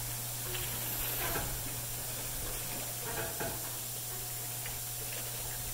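Boat-dock insect misting system spraying through its nozzles: a steady hiss of fine mist, over a steady low hum.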